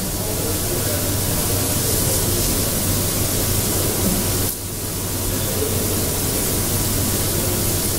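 Steady, loud hiss of static noise over a low hum, dipping briefly about four and a half seconds in.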